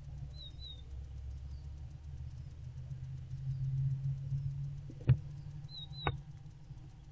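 Barn owlets shifting about inside a wooden nest box: a low scuffling rumble that swells in the middle, then two sharp knocks about a second apart. A small bird chirps briefly twice outside the box.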